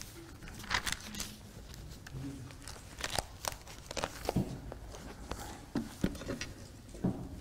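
Thin Bible pages being turned, heard as short, irregular rustles of paper with a few soft knocks against the pulpit.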